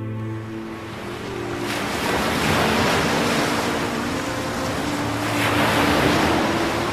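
Ocean surf washing onto a sandy beach, the wash swelling about two seconds in and again near six seconds.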